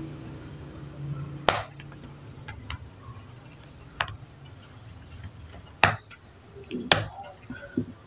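Plastic clips of a Jumper EZbook X3 laptop's bottom cover snapping loose as the cover is pried off by hand: four sharp snaps a second or two apart, with fainter ticks between.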